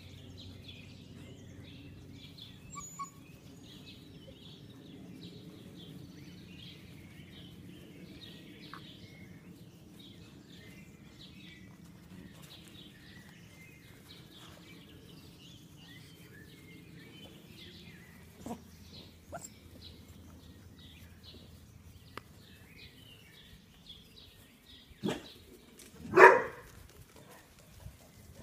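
Vizsla puppies playing, with two short, loud puppy barks near the end, the second the louder. Faint bird chirps run under a low steady background throughout.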